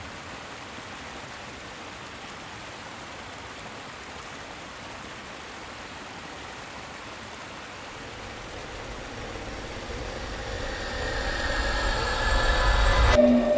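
A steady, quiet hiss, then a vehicle's engine noise that grows steadily louder over the last few seconds, as if approaching, and cuts off abruptly near the end.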